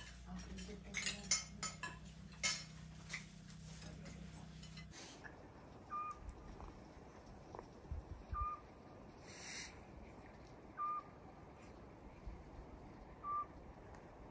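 Spoons and forks clinking against plates during a meal. About five seconds in this gives way to a single short whistled bird note repeated about every two and a half seconds, with a brief hiss near the middle.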